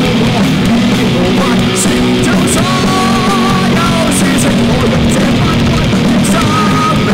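A live rock band playing loud, with electric guitars and a drum kit, and cymbal hits throughout.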